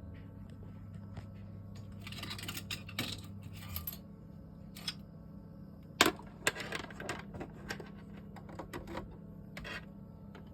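Scattered sharp clicks and small metallic taps over a steady low electrical hum. The hum cuts off about four seconds in, just after a short crackling, hissy stretch.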